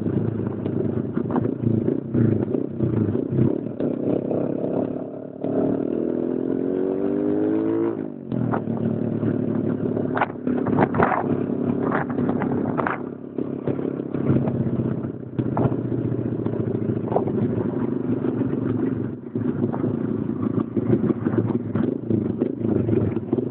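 Small motorcycle engine running at road speed, its pitch rising as it accelerates from about five seconds in, then dropping sharply at a gear change around eight seconds. Wind noise and scattered clatter and knocks run under it.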